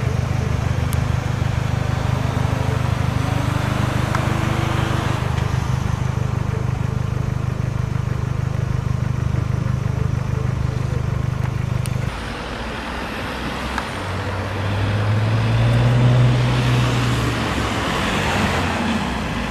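A car engine running with a steady low throb. It drops away suddenly about twelve seconds in, and then another engine note rises and falls, loudest around sixteen seconds in.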